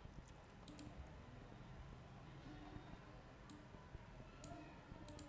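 Near silence with several faint, sharp clicks of a computer mouse scattered through, spaced irregularly.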